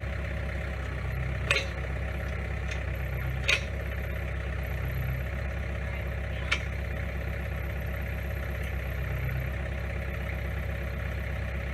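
Tractor engine idling steadily with a post-hole auger hitched on but not turning, with three sharp clicks about one and a half, three and a half and six and a half seconds in.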